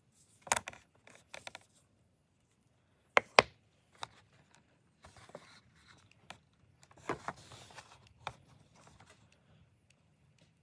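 Handling noise from small leather goods: scattered sharp clicks and taps, with soft rubbing and shuffling between them. The loudest is a quick double click about three seconds in.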